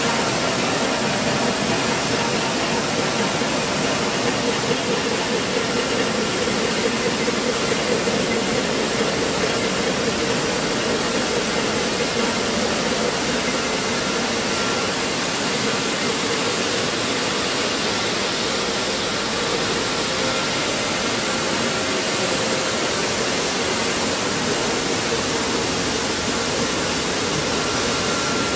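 Running stone flour mill plant: stone grinding mills and their drive motors going together, an even, steady rushing noise with faint steady tones in it.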